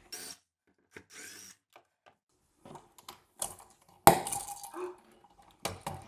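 Hand-work at a wall outlet: faint scrapes and small clicks, then a sharp clink about four seconds in with a brief ring, like a small metal part set down on the stone countertop, and another knock near the end.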